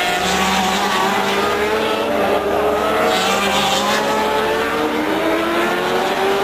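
Racing motorcycle engines running at high revs, their pitch climbing steadily as the bikes accelerate along the track.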